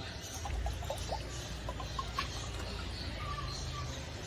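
Water glugging out of the narrow inlet nozzle of a two-stroke motorcycle power box (resonator) into a glass measuring cylinder, a run of short glugs mostly in the first couple of seconds.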